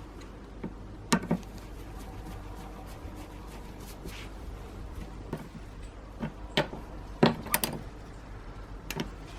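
Brush cutter parts and tools being handled on a workbench during disassembly: a few sharp knocks and clicks, two about a second in, a quick cluster a little past the middle and one more near the end, over a low steady hum.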